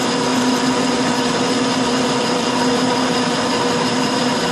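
Metal lathe running steadily at low speed while a 1/8 inch parting tool cuts into steel under flowing coolant: a steady machine whine over an even hiss.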